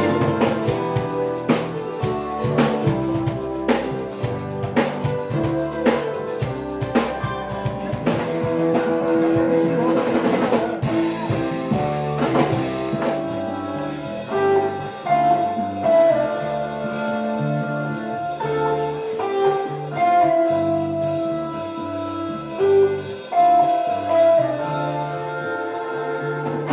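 A live funk-blues band plays an instrumental passage on drum kit and guitar over a repeating low bass line. In the second half, long held notes ring out above it.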